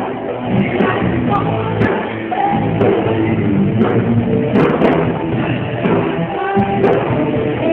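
Rock band playing a song, with electric guitars, drums and a singing voice.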